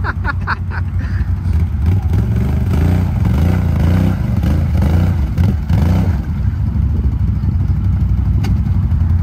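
Can-Am Outlander XMR ATV's V-twin engine running under throttle in a mud hole, rising and falling in pitch for a few seconds, then running steadier.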